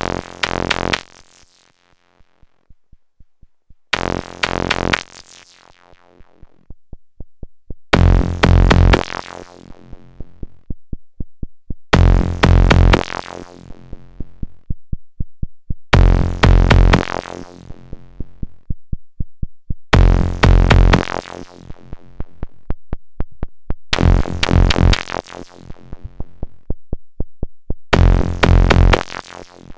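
Eurorack modular synthesizer patch played through the ST Modular EFI filter. A heavy, bright note sounds every four seconds, its top end falling away over about a second as the filter closes, over a steady run of quick ticks. The cutoff is being turned by hand, and the notes grow bassier after the first two.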